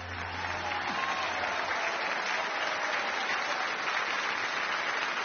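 Studio audience applauding, building up over the first second as the last low note of the music dies away.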